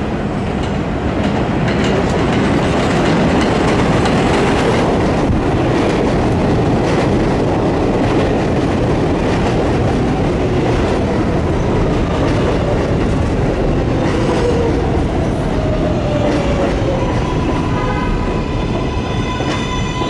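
R188 subway train running on the track, with a whine that falls in pitch about two-thirds of the way through and a steady high tone with several pitches near the end.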